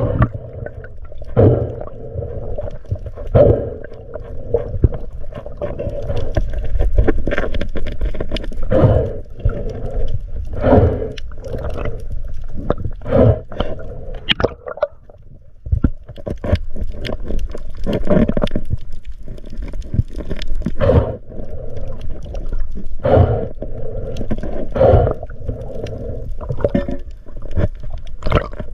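Underwater sound through an action camera's waterproof housing: a steady low rumble with muffled swishing water and irregular knocks and thumps against the housing.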